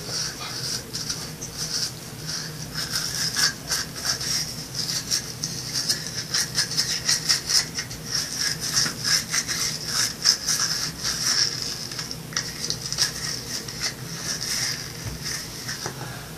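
A toothbrush scrubbing teeth in quick back-and-forth strokes, the strokes coming fastest and loudest in the middle stretch.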